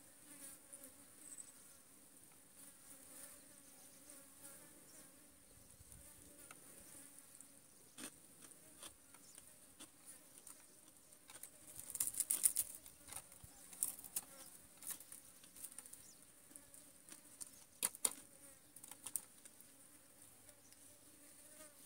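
Flies buzzing steadily close by, with a few light clicks and taps, a cluster about twelve seconds in and another sharp one near eighteen seconds.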